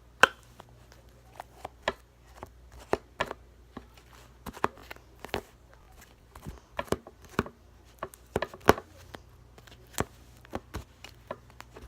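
Glitter-filled slime being squeezed and stretched by hand, giving irregular sharp pops and clicks.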